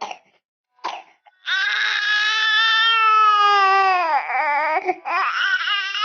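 A baby crying, sick with a cough: a couple of short coughs in the first second, then one long wail of nearly three seconds that falls in pitch at its end, and another cry near the end. The coughing has come back just after a cold.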